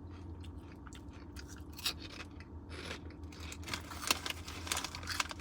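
A person chewing crunchy fried pork rinds: irregular crisp crunches, sparse at first and more frequent from about two seconds in.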